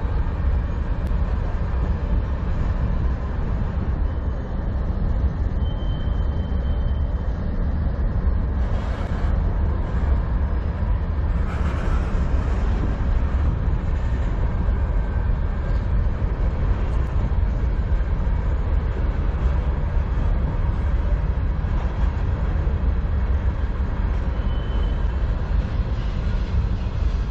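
Freight cars of a CN manifest train rolling past: a steady low rumble of steel wheels on the rails, with a couple of brief faint high squeaks.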